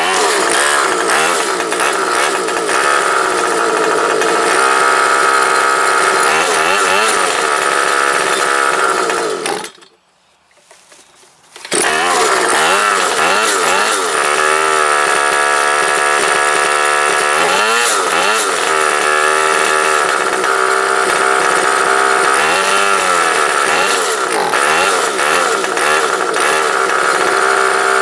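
Haifly 3.6 hp two-stroke outboard motor running, just started with the choke off, its speed rising and falling as the tiller throttle is worked. About ten seconds in, the sound dies away to near silence for about two seconds, then the engine is running again.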